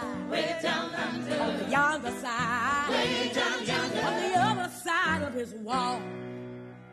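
Show tune from a stage musical: a woman singing with strong vibrato over a band, other voices joining in, ending on a held note that dies away.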